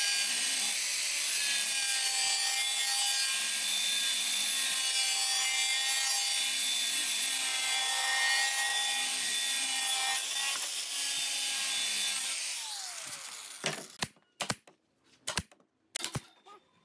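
A handheld angle grinder running with its disc against the edge of a wooden panel, a steady whine as it cuts the wood. The motor winds down about four-fifths of the way in, followed by several sharp knocks of wooden pieces being handled.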